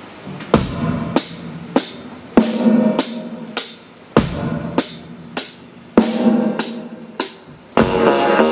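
Drum kit playing a steady beat alone, with a hit about every 0.6 s and a deep bass-drum hit every few seconds. Near the end the rest of the band comes in with pitched instruments.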